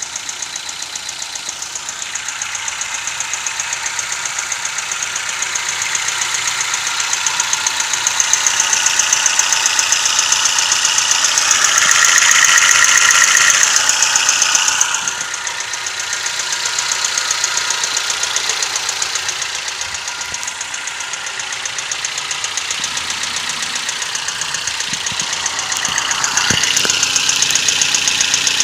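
Toyota 1NZ-FE four-cylinder engine running with a fast, even metallic knocking or ticking, louder around the middle. The uploader has been told it is typical of a worn timing chain and VVT-i cam-phaser clutch.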